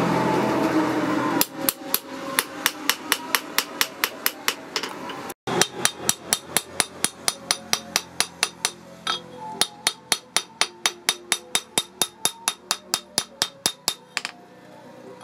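Hand hammer striking a forged steel claw-hammer head on a post anvil in a fast, steady rhythm, nearly four blows a second, each a sharp metallic clank with a short ring. The blows break off briefly a little over five seconds in, then carry on until near the end.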